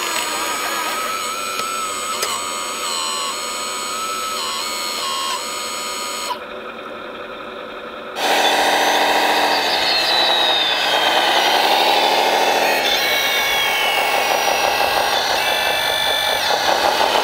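Electric motor whine from 1/14 scale RC construction machines: a tone that steps up and down in pitch as the throttle changes, then, after a brief muffled stretch, a louder whine that sags in pitch and climbs back, as if under load.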